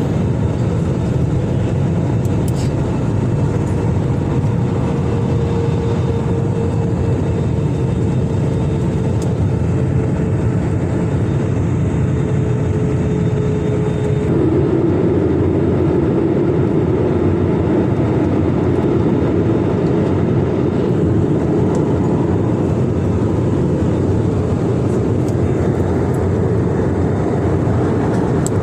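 Airliner cabin noise in flight: a steady, loud rush of engine and airflow noise during the descent. A hum under it drops slightly in pitch and spreads out about halfway through.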